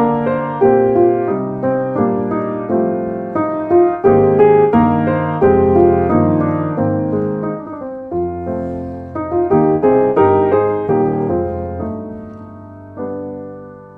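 Background piano music, a flowing melody over chords, ending on a last chord that fades out.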